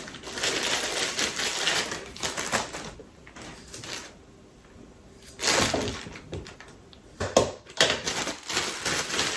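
Kitchen food-preparation handling noises: irregular clicks, knocks and rustling, with a lull in the middle and a louder knock about five and a half seconds in.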